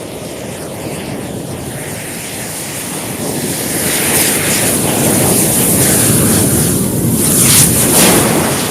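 A large bunch of matches burning together in a flare-up: a rushing hiss with crackles that swells about halfway in and eases off near the end.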